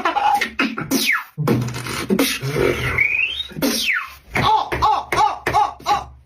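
Mouth beatboxing: a run of sharp clicks and hissing, a rising whistle-like glide about three seconds in, then a falling sweep and a quick string of short pitched vocal hits, about four a second.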